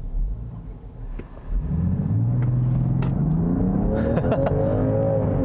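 2021 Land Rover Defender 110's turbocharged inline-six with electric supercharger, heard from inside the cabin: a low rumble at first, then about a second and a half in the engine revs up hard under full-throttle acceleration from a stop, its pitch climbing, with a brief drop in pitch near the end as the automatic shifts up.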